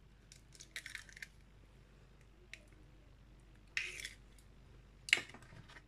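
Hen's eggs being cracked open by hand over a plastic mixing bowl, the shells crackling as they break and are pulled apart. Faint short crackles come about a second in and again near four seconds, with a sharp click near the end.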